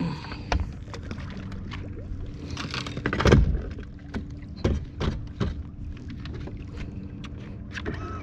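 Steady low motor hum on a bass fishing boat, with scattered knocks and clicks on the hull and deck and one heavier thump about three seconds in.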